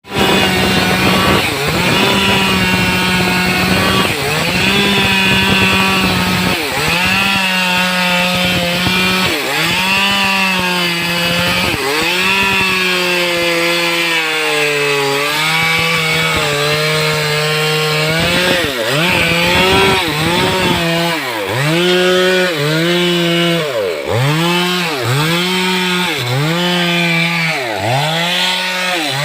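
Stihl two-stroke chainsaw cutting through teak wood at high revs, its engine pitch dipping and recovering as the chain bites. In the latter part the dips come in a steady rhythm, about once a second.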